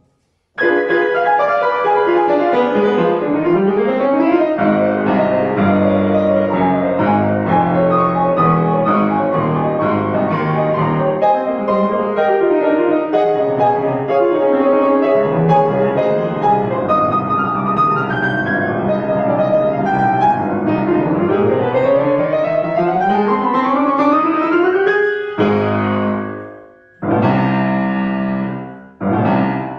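Solo grand piano playing a fast classical piece, with sweeping runs up and down the keyboard, breaking into loud, separate chords with short gaps near the end.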